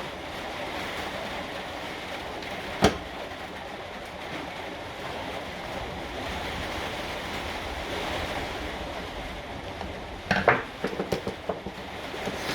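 Steady background hiss, with a single sharp click about three seconds in and a quick run of small clicks and knocks near the end, as grinder parts and tools are handled during the switch replacement.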